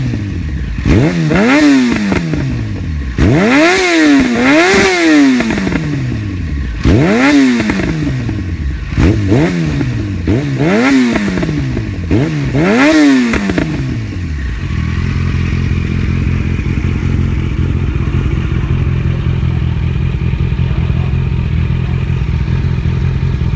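Yamaha FZ motorcycle engine through an aftermarket Akrapovic exhaust, revved in about eight quick throttle blips, each rising sharply and falling back, then settling about 14 seconds in to a steady idle.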